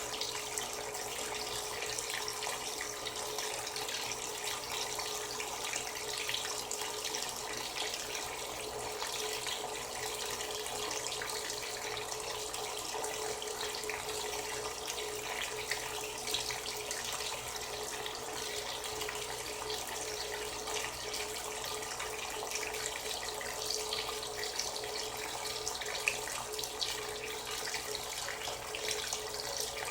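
Frigidaire Gallery Series top-load washer filling, water running steadily into the tub.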